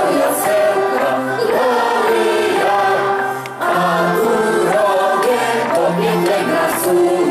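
Mixed group of men's and women's voices singing a Polish Christmas carol (pastorałka) together, with a short break between phrases about halfway through.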